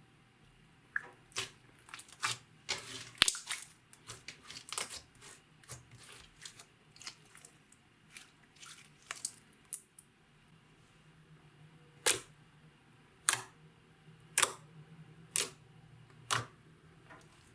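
Clear slime being squeezed and worked by hand, giving a dense run of sticky clicks and crackles, then five separate sharp pops about a second apart.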